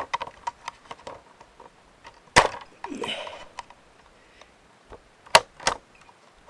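Plastic laptop screen bezel being pried off with a small pocket-knife screwdriver: a run of small clicks and creaks as the snap clips strain, with two loud sharp cracks, one about two and a half seconds in and one about five seconds in.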